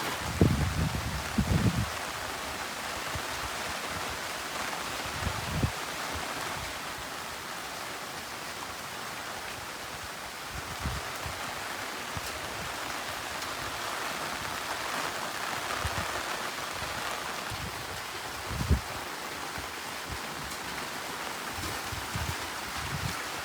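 Heavy rain falling as a steady, even hiss, with a few dull low thumps, a cluster in the first two seconds and the loudest about 19 seconds in.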